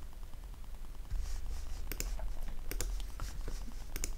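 A few scattered light clicks from someone working a computer, over a steady low hum.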